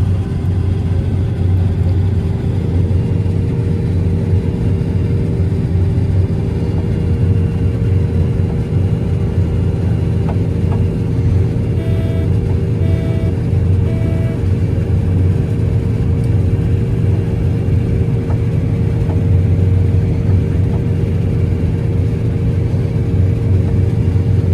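John Deere 9750 STS combine running steadily while harvesting, heard from inside the cab as a constant low drone of engine and threshing machinery. About halfway through, three short electronic beeps sound from the cab.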